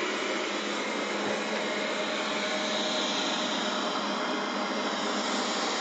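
Robot vacuum cleaner running steadily, a continuous whir of its suction fan and brushes with a faint steady hum in it.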